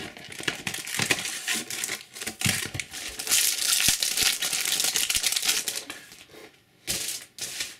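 Foil trading-card booster pack being crinkled and torn open: several seconds of dense crackling of the thin foil wrapper, with a short sharp burst near the end.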